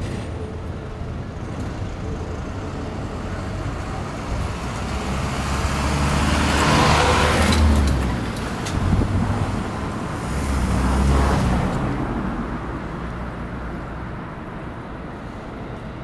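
Keikyu 2100-series electric train passing at speed, with low rumble and wheel-on-rail noise. It builds to its loudest about halfway through with a few sharp clacks, swells once more, then fades as the train moves away.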